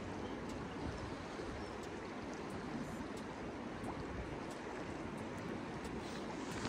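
Steady rush of flowing river water, with faint scattered ticks over it.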